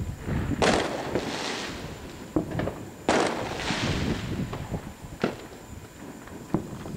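Fireworks going off: two loud bangs, about half a second in and again about three seconds in, each trailing off in a long echo. Scattered smaller pops and cracks follow.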